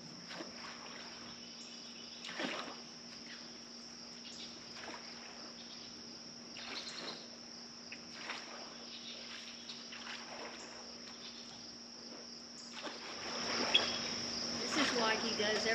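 Insects chirring in one steady high drone, with a faint steady low hum beneath. Soft, scattered splashes and knocks from a paddle worked through algae-covered water beside a small aluminium boat grow louder and busier near the end.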